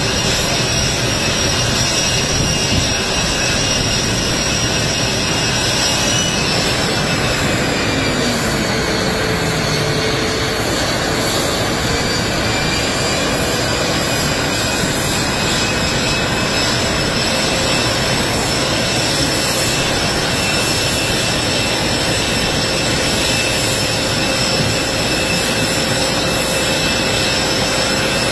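A steady, loud mechanical roar with high whining tones. The whine dips in pitch about six seconds in, then slowly climbs back and holds steady.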